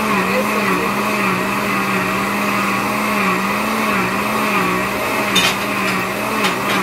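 Electric kitchen blender motor running steadily with a slightly wavering hum, blending mango pulp. There are two short clicks near the end.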